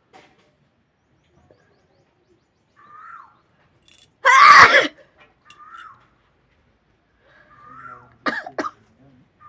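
A woman sneezes once, loudly, about four seconds in, set off by a chili pushed into her nose. Near the end come two short, sharp bursts of breath.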